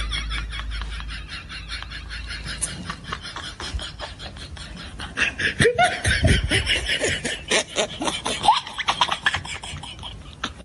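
People laughing hard in rapid, repeated bursts, loudest from about five to nine seconds in.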